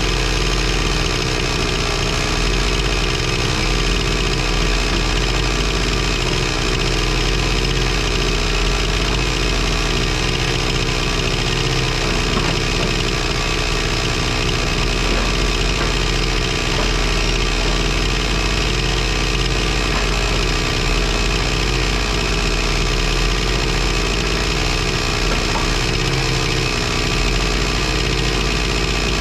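Excavator engine running steadily at a constant speed.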